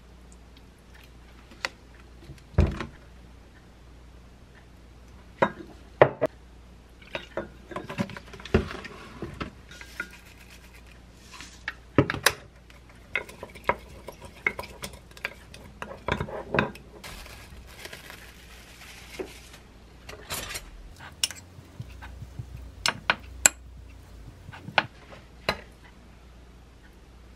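Kitchen handling sounds while mixing a dressing: a wooden spoon stirring and scraping in a glass mug, among a series of sharp knocks and clinks of utensils and containers. Near the end, a knife lays sliced salmon onto rice in a ceramic pot.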